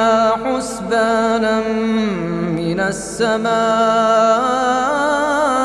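A man's solo Quran recitation in melodic tajweed style, holding long drawn-out notes with wavering, ornamented pitch. The voice steps down in pitch about two seconds in, then takes a short breath about three seconds in before rising into further long notes.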